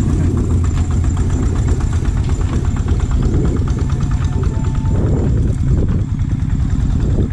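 An engine running steadily with a fast, even knocking beat over a loud low rumble.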